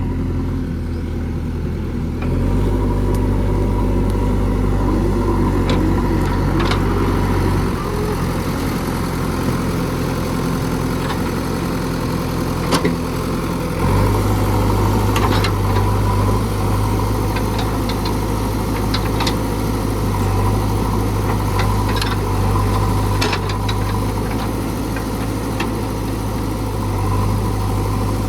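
JCB 3DX backhoe loader's diesel engine running steadily, its pitch and load shifting a few times, with scattered sharp clicks and knocks over it.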